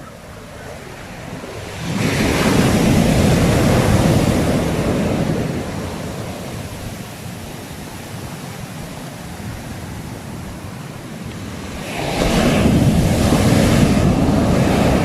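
Sea waves breaking on the shore: a wave crashes about two seconds in and washes back, and a second one breaks near the end.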